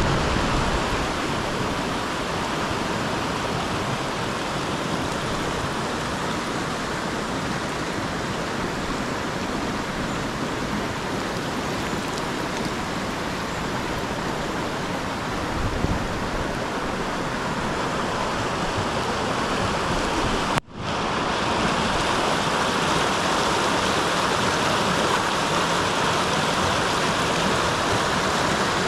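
Fast-flowing floodwater rushing and churning in a swollen creek, a steady rushing noise. It breaks off for an instant about two-thirds of the way through and comes back slightly louder.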